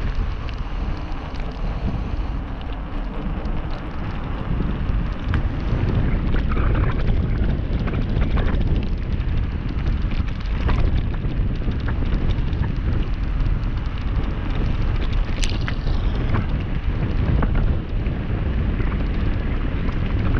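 Tyres rolling fast down a gravel track, with wind buffeting the microphone and scattered clicks and knocks from stones and rattling, one sharp click about three-quarters of the way through.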